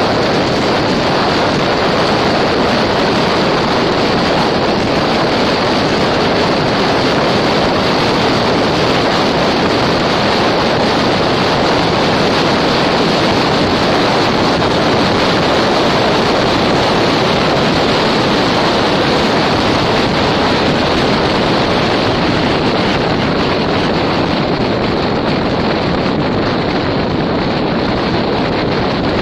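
Steady, loud rush of wind and road noise from a car being driven.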